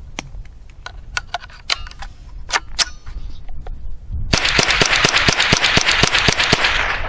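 Rock Island TM-22 semi-automatic .22 LR rifle: a few sharp clicks of a magazine being seated and the rifle handled, then about four seconds in, rapid fire of about a dozen shots in a little over two seconds.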